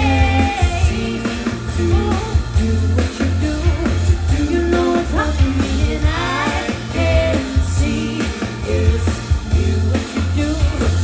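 Live pop band playing a song: a singer over a steady, heavy bass line and drums.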